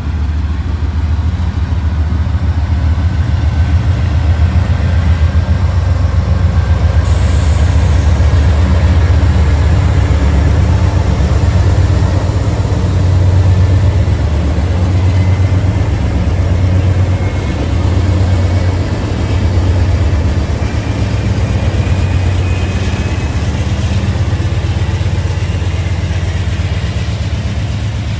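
Norfolk Southern diesel freight locomotives passing close by, their engines running with a loud, steady low drone over the rumble of the train on the rails.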